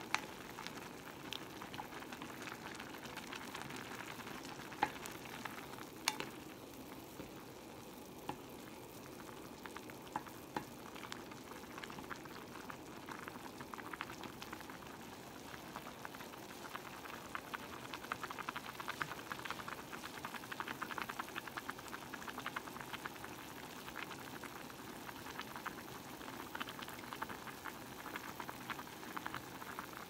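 Bulgogi stew simmering in an enamelled cast-iron pot, a steady bubbling crackle, while a wooden spoon stirs through it and knocks against the pot a few times, sharpest about 5 and 6 seconds in.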